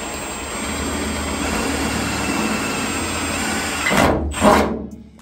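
Milwaukee M18 cordless drill running steadily as a larger twist bit bores out a pilot hole in the truck's sheet-metal roof, with a thin high whine over the cutting noise. About four seconds in there are two louder bursts of grinding, then the drill stops.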